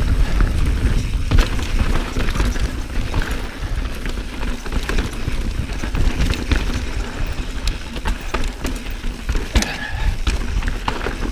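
A 2019 Santa Cruz Bronson full-suspension mountain bike ridden fast over a rough dirt trail: wind rumble on the microphone and tyre noise, with frequent sharp clicks and rattles from the chain and frame over bumps.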